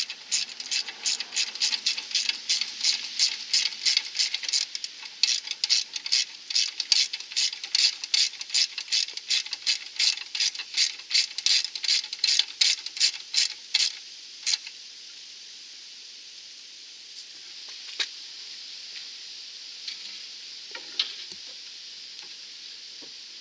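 9/16 in. ratchet wrench clicking fast and evenly, about three to four clicks a second, as it works a sway bar link nut. The clicking stops about 14 seconds in, and a few single clicks follow against a steady hiss.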